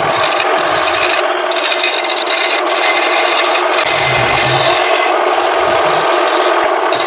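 Sandpaper pressed against a wood blank spinning on a belt-driven lathe: a steady, unbroken rasping hiss.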